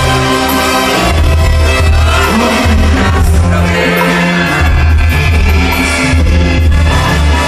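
Live Mexican banda music: a tuba plays a low, changing bass line under brass and drums while a singer sings the melody, loud and continuous.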